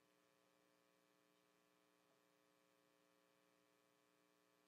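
Near silence with a faint steady electrical hum.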